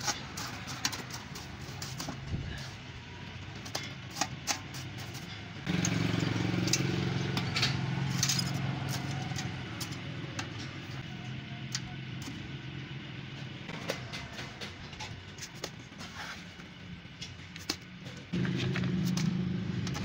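A steady low engine-like hum runs under the whole stretch, jumping suddenly louder about six seconds in and again near the end. Over it come scattered light clicks and scrapes, which fit a trowel and a gloved hand working wet lining mix inside a thin metal can.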